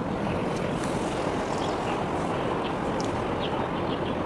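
Steady low rumbling noise of harbour background, with a few faint short high chirps over it.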